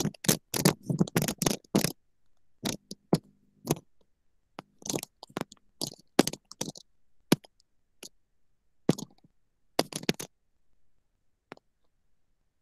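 Irregular clicks, taps and scrapes from someone working a computer's mouse and keyboard close to the microphone. They come in short clusters with gaps and thin out in the last couple of seconds.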